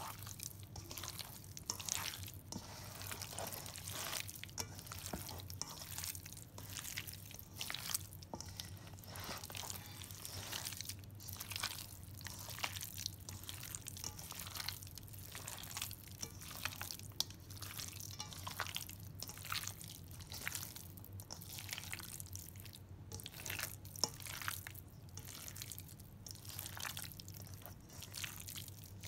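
Wet squelching of a bare hand kneading and turning raw chicken pieces in an oily spice marinade in a stainless steel bowl, in quick, irregular squishes. A steady low hum sits underneath.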